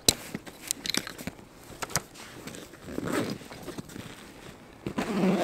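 Hiking backpack being handled: quick clicks and rasps from its buckles and straps as gear is fastened on, then heavier rustling of the nylon pack near the end as it is shifted.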